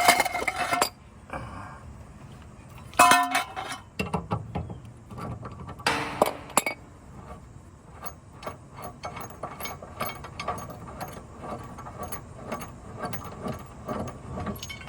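Hand tools working on a mower blade: a few clanks and clinks of metal on metal, then a long run of quick light clicks in the second half.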